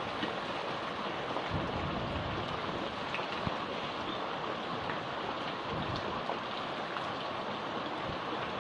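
Heavy rain falling steadily: a dense hiss with scattered ticks of drops.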